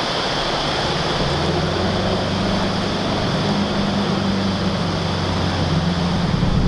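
A 4WD ute's engine running steadily as it wades slowly through a fast-flowing river, over the steady rush of the water and the splash of its bow wave. The engine hum grows louder as the vehicle comes closer near the end.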